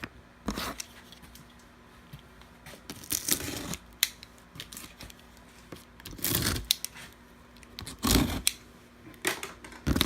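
A cardboard shipping box being opened by hand: a handful of separate scraping, tearing and rustling noises with sharp clicks between them.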